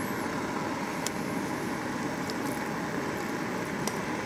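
Steady rushing background noise, with a few light clicks of chopsticks against a metal pot and bowl as hot pot is served out.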